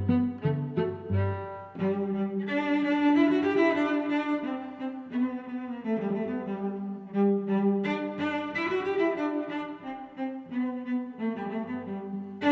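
Background music of cello and other bowed strings. It opens with short detached low notes, then moves to held notes under a melody.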